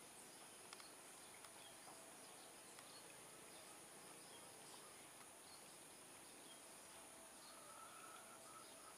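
Near silence: faint rural ambience with scattered small chirps and a steady high insect hum. A faint repeating tone comes in near the end.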